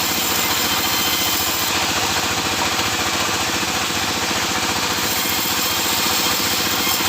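Sawmill machinery running steadily: an engine-driven saw rig with a rapid, even pulse under a broad hiss, with no change in pace.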